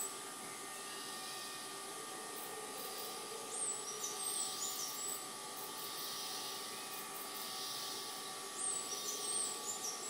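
Tropical rainforest dawn chorus: a steady drone of insects holding constant tones, with high, sliding bird calls in two short flurries, one about a third of the way in and one near the end.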